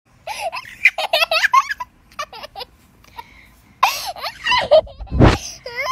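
A young child giggling and laughing in short high bursts, with a brief rushing burst of noise near the end.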